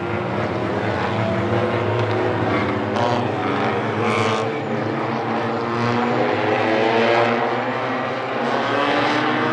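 A pack of tuner-class race cars, small compact cars, running together on a short oval. Their engines overlap in a steady drone, with pitches rising and falling as cars come on and off the throttle.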